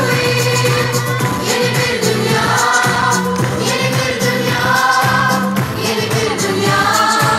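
Live concert music heard from the audience: singing backed by a large choir, with instruments holding low notes and a steady percussive beat.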